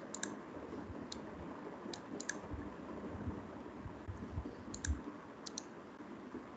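Computer mouse clicking, about a dozen sharp clicks at irregular intervals, several in quick pairs, over a faint steady hiss.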